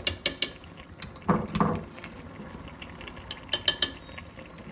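A metal spoon clinking against metal in quick clusters of clicks as yogurt is spooned into a pressure cooker, once at the start and again about three and a half seconds in, with a duller knock in between.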